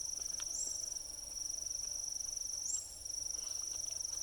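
Insects trilling in a steady, high-pitched chorus, with a short upward-gliding note about every two seconds. A few faint clicks can be heard underneath.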